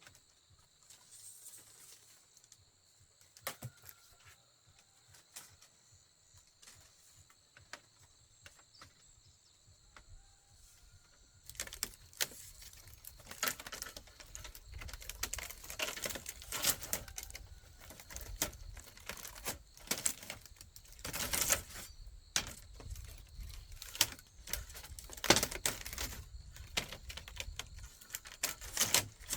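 Bamboo knocking and clattering as it is handled and worked: scattered light clicks at first, then from about twelve seconds in a dense, irregular run of sharp knocks. A steady high insect whine sounds through the first part.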